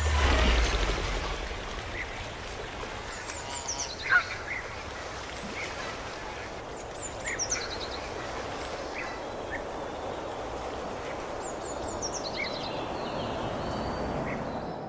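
Birds calling over a steady outdoor background hiss. A short falling run of high chirps comes three times, about every four seconds, with a low rumble fading away in the first second.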